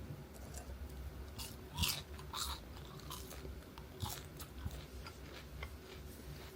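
A person eating: crunchy bites and chewing, heard as irregular short crisp crackles and clicks, over a faint low steady room hum.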